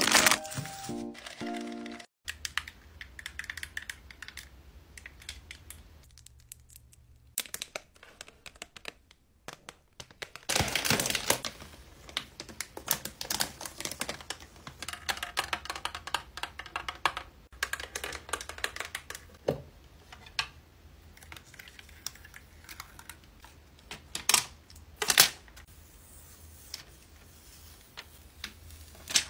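Close-miked unboxing handling sounds: a stretch of crackling plastic wrap, then scattered taps and clicks, with a few sharper clicks near the end, as a clear plastic case is opened and a small pink gadget is lifted out. The first two seconds hold music over rustling of a candy bag, cut off abruptly.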